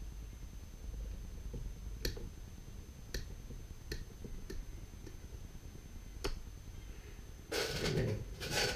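Fret end nippers working an old fret out of a maple fretboard: a handful of sharp, separate clicks spaced a second or so apart as the jaws grip and rock the fret wire, then a short louder rattle of the tool being handled near the end.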